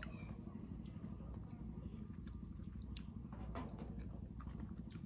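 Quiet eating sounds: scattered faint clicks as grilled apple snail shells are handled and picked with a toothpick, over a steady low hum.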